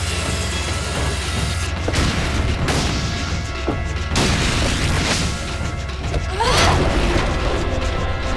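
Dramatic action-score music under a string of heavy booming impacts and crashes, followed by a quick rising whoosh about six and a half seconds in.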